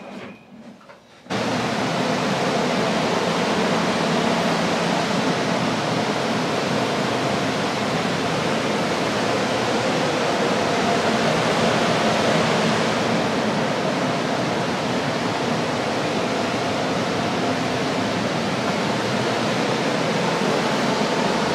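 Water-damage drying equipment, carpet air movers and a dehumidifier, switches on about a second in and then runs with a steady loud rush of air and a faint hum, blowing under the lifted wet carpet to dry it.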